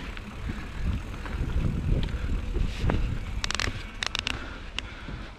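Mountain bike rolling along a dirt trail: low rumble of wind on the microphone and tyres on the ground, with a quick cluster of sharp clicks and rattles from the bike a little after halfway.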